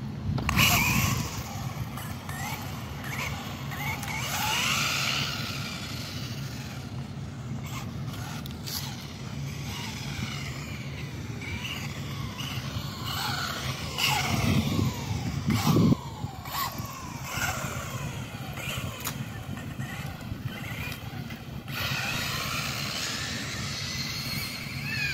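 Brushless RC buggy motor whining, its pitch climbing and falling again and again as the car speeds up and slows down, over a steady low rumble. The rumble gets louder for a couple of seconds around the middle.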